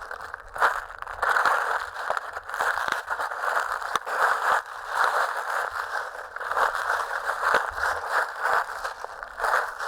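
Footsteps crunching through dry fallen leaves, at an even walking pace of roughly two steps a second.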